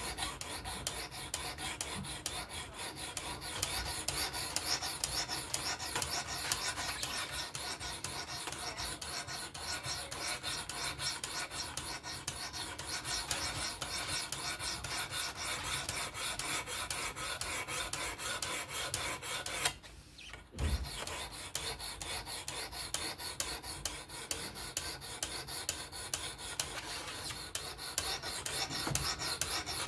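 Knife blade stroked rapidly back and forth along a coarse 240-grit stone on a fixed-angle sharpener: a steady rasping scrape, broken by a short pause about two-thirds of the way through.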